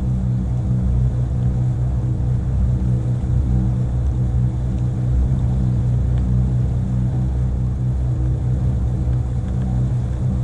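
Motorboat engine running steadily under way: an even, low hum with several steady tones and no change in speed.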